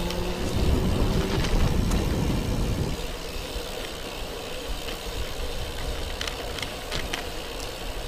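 A motor vehicle going past, its engine and tyre rumble loudest in the first three seconds, then a steady rushing road noise.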